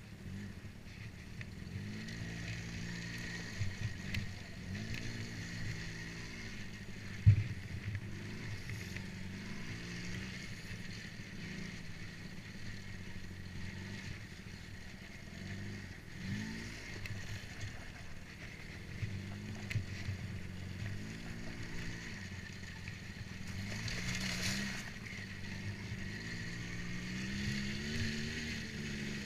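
ATV engine revving up and easing off again and again as it is ridden, with a single sharp knock about a quarter of the way through that is the loudest sound, and a brief rush of hiss later on.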